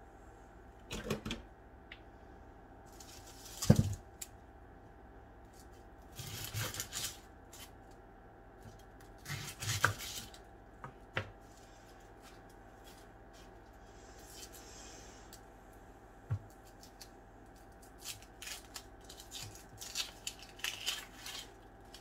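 Dry onion skins crackling and rustling as they are peeled off by hand, in several short bursts with pauses between. A sharp knock about four seconds in is the loudest sound, with a few fainter clicks later.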